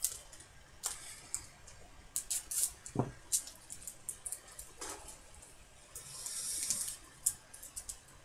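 Plastic-foil wrapper of a trading card pack crinkling as it is torn open, then cards rubbing and clicking in hands: a string of short, sharp crackles, with a longer rustle about six seconds in.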